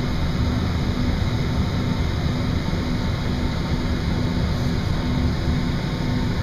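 Steady low rumble and hiss inside the cabin of a Boeing 767-400 airliner, with a faint steady hum over it.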